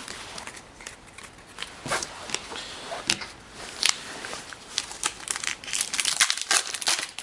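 Foil wrapper of a hockey card pack crinkling and tearing as it is opened by hand, with a run of sharp crackles that grows denser near the end.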